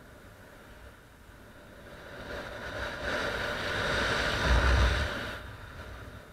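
Wind rushing over the microphone of a paraglider pilot's camera in flight. It swells from about two seconds in to a buffeting peak with a low rumble, then dies away again.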